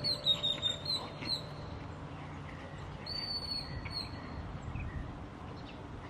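Two dogs play-fighting on gravel, with a few short sharp sounds in the first second and a half. Birds chirp high and thin in the background, in the first second and a half and again about three seconds in.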